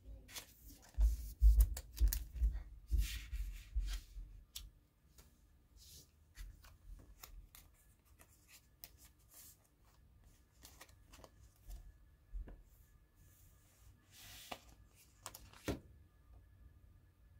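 Glossy photo prints being handled and slid over one another on a table: a busy run of rustling and slapping in the first few seconds, then occasional soft slides and taps, with two sharper flicks near the end.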